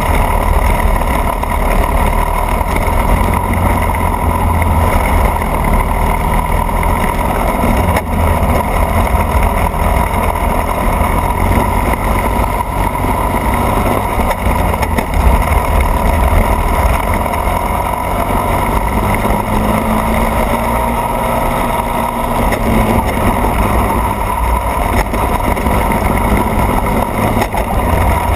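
Racing kart engine running hard at speed, recorded close up from the kart's rear, with a steady heavy low rumble.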